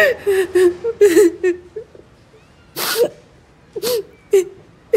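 A woman sobbing: short, high whimpering cries broken by sharp gasping breaths, about five in a few seconds.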